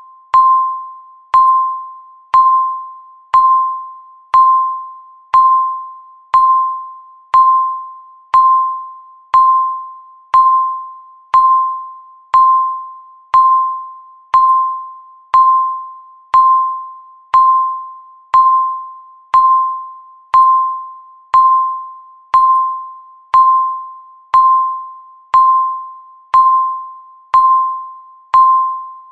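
Countdown timer beeping once a second, each beep marking one second counted down. Every beep is a single mid-pitched electronic tone that starts sharply and fades away before the next.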